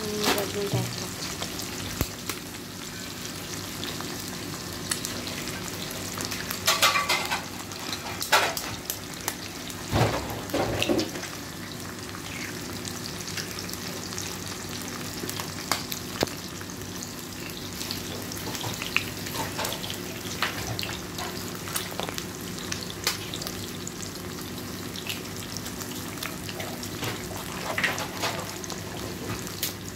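Eggs, onion, tomato and capsicum frying in oil in a frying pan, a steady sizzle with scattered crackles. A few short louder bursts and clicks come as more eggs are cracked into the hot pan.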